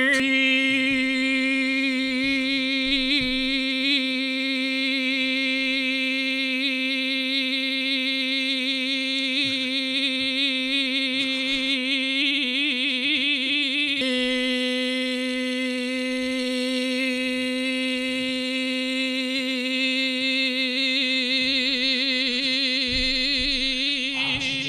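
A person's voice holding one long, steady "beep" in imitation of a car horn stuck on and sounding by itself, the pitch wavering for a couple of seconds about halfway through.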